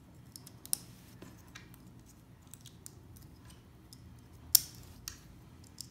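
LEGO plastic pieces being pressed together by hand: a few sharp plastic clicks as 1x2 tiles snap onto the spinner's ends, the loudest about four and a half seconds in.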